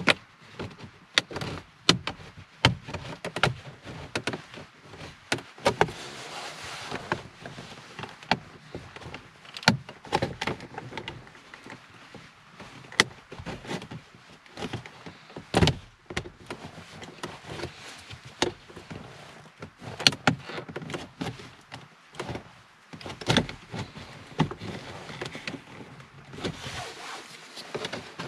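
Hard plastic centre-console trim being worked loose with a plastic pry tool: irregular sharp clicks, knocks and creaks as the panel's retaining clips are levered and shifted.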